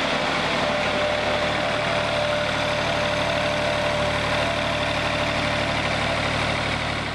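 Wood-Mizer LT40 Wide portable band sawmill running, its band blade sawing through a walnut log: steady engine noise with a dense cutting hiss and a thin, steady whine.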